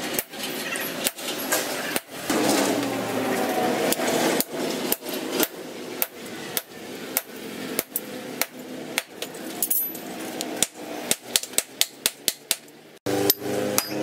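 Blacksmith's hammer striking red-hot steel on an anvil, blows coming about twice a second, then a quicker run of ringing strikes near the end.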